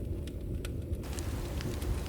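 Bonfire crackling: scattered sharp pops and snaps from the burning wood over a steady low rumble of flame, the hiss growing a little louder about halfway through.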